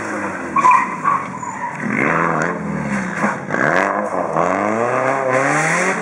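Lancia Delta rally car engine revving hard under full throttle, its pitch climbing and then dropping several times as it shifts through the gears.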